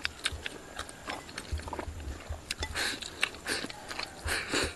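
People eating from ceramic bowls: chopsticks clicking against the bowls, with several short slurps in the second half as food is shovelled from bowls held to the mouth.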